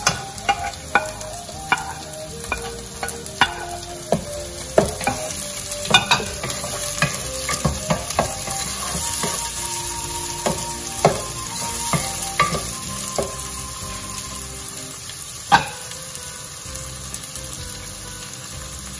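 Diced onion and bell peppers sizzling in oil in a pot, with a wooden spoon scraping and knocking irregularly against the pan as they are stirred; one sharper knock comes near the end.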